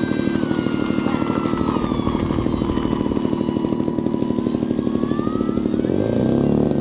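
Electric motor and propeller of an RC model Cessna 182 whining. The pitch drops in the first couple of seconds as the throttle is eased while taxiing, then climbs again about five seconds in as power comes up to start the takeoff roll. Under it runs a steady, rapid low throbbing.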